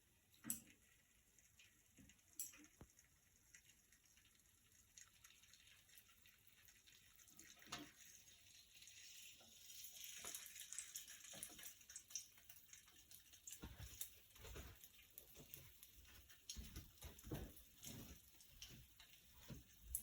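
Faint kitchen sounds: scattered clicks and knocks. From about ten seconds in there is a brief faint hiss of running tap water, followed by more frequent knocks and clatter of utensils.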